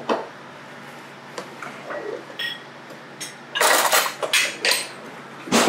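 A kitchen drawer opened and cutlery clattering as a hand rummages through it for a spoon, a quick run of loud rattles about two-thirds of the way in, with a sharp knock near the end.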